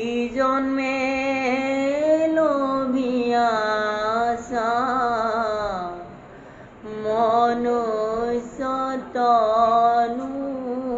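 A single voice chanting a devotional Bhagavata recitation in a melodic sing-song, holding long wavering notes that glide up and down, with a short break about six seconds in.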